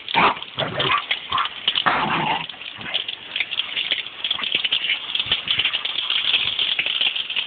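Garden hose spray nozzle hissing steadily as water sprays out. A dog gives several short barks at the spray in the first two seconds or so.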